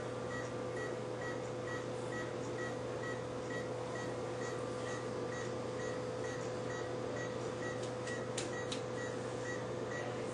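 Veterinary anaesthesia monitor beeping regularly, about two short high-pitched beeps a second, over a steady electrical hum.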